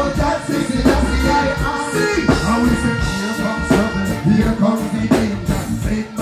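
Live reggae music played loud through a stage sound system: drums keep a steady beat of about two strokes a second over a heavy bass line, and a voice sings from about two seconds in.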